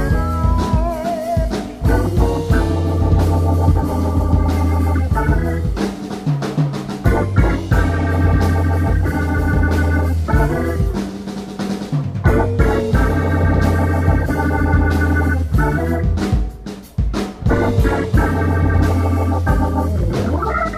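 Live band playing: keyboard organ chords over electric bass and guitar, the music breaking off briefly a few times between phrases.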